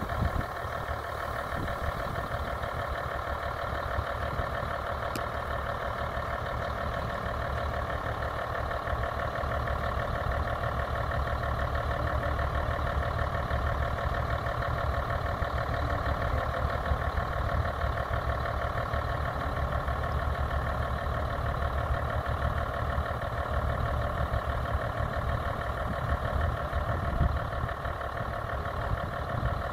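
Heavy diesel engine running steadily at a constant speed, a little louder from about ten seconds in.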